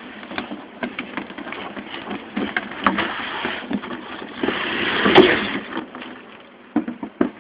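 Cardboard model-kit boxes being handled inside a cardboard shipping carton: boxes sliding and scraping against each other and the carton walls, with scattered knocks and rustles. The loudest scrape comes about five seconds in.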